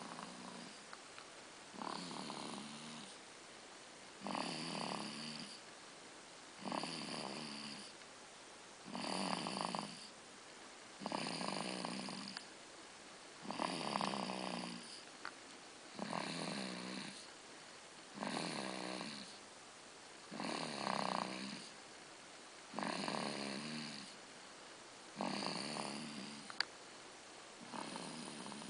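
Steady, rhythmic snoring: about a dozen snores, each lasting about a second, one roughly every two seconds.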